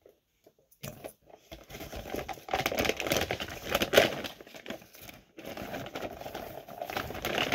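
Thin plastic shopping bag crinkling and rustling as it is handled and rummaged through, starting about a second in, with a brief lull a little past the middle.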